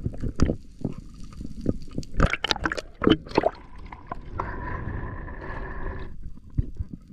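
Sea water sloshing and gurgling around a camera bobbing at the surface in choppy water, with many sharp splashes in the first half and a steadier rushing stretch of about two seconds past the middle.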